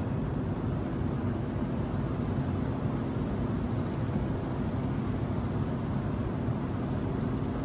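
Single-phase 120-volt motor of a belt-driven exhaust fan humming steadily while stalled: it is trying to start but cannot turn over, a sign of a bad start capacitor.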